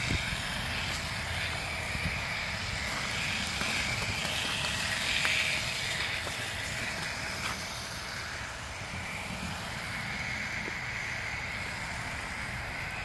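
Motor and drivetrain of a homemade tracked RC vehicle on skis, driving through snow: a high whine that swells and fades with the throttle. It is loudest about five seconds in and dips for a few seconds near the middle, over a low rumble.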